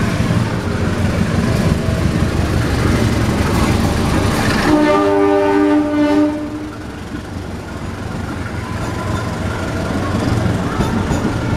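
Electric commuter train rolling past with a steady rumble, and a train horn sounding one blast of about a second and a half near the middle; the rumble eases after the horn.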